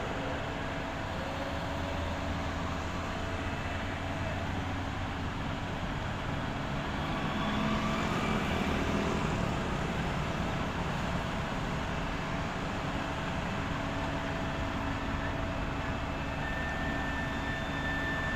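Diesel engines of an asphalt paver and a dump truck running steadily, a low rumble, a little louder for a couple of seconds about eight seconds in. A thin steady high tone joins near the end.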